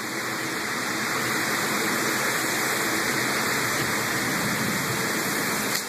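Heavy, wind-driven thunderstorm rain pouring down: a steady rushing hiss, a little louder after the first half second.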